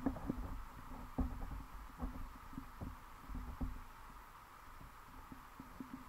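Muffled underwater noise picked up by a submerged camera: low rumbling with irregular soft knocks and clicks. The knocks thin out over the last couple of seconds.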